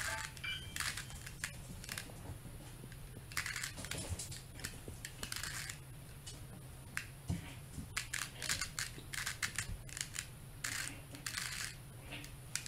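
A plastic 3x3 Rubik's cube being turned by hand: irregular runs of quick clicking turns, with short pauses between sequences.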